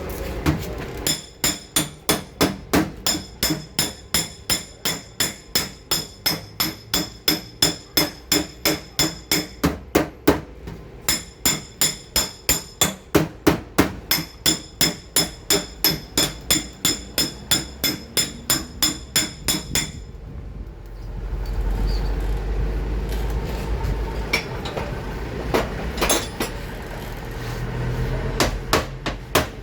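Steady hammer tapping on sheet metal, about two and a half blows a second, each with a short metallic ring. This is typical of tapping down a car fender during paintless dent repair. It stops about twenty seconds in and gives way to a low rumble with a few scattered clicks.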